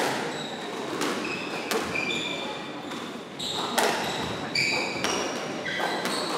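Squash rally: sharp knocks of the ball off rackets and court walls about every second, with short high squeaks of court shoes on the wooden floor.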